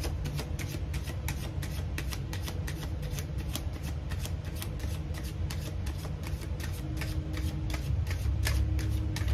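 A deck of tarot cards being shuffled in the hands: a quick, even run of soft card slaps, about five a second, over a steady low hum.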